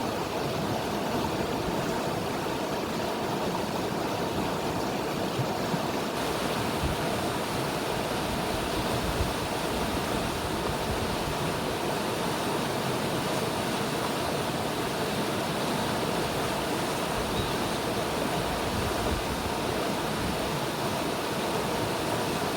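River water rushing steadily, a constant even wash of flowing water.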